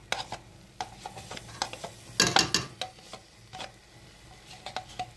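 Clinks and knocks of a metal spoon and a plastic cream tub against a stainless steel cooking pot as fresh cream is poured onto roasted semolina. The loudest part is a quick cluster of several knocks a little over two seconds in.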